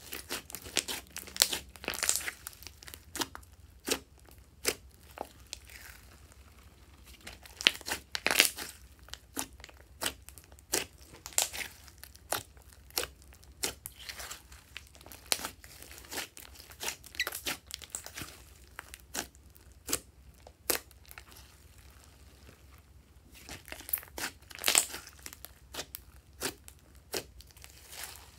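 Glossy slime being mixed and squished, giving off a quick irregular run of sticky clicks and crackles. The clicks are heaviest in the first half and again near the end.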